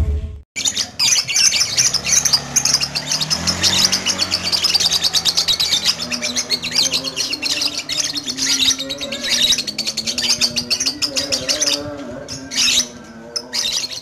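Young lovebird singing a long, rapid run of high chattering chirps, starting about half a second in and thinning to scattered chirps near the end.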